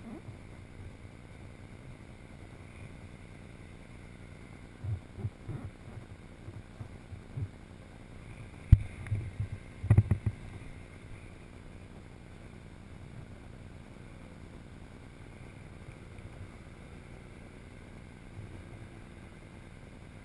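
Wind buffeting a helmet-mounted camera's microphone as a low, uneven rumble, with a few soft thumps and one sharp knock about nine seconds in.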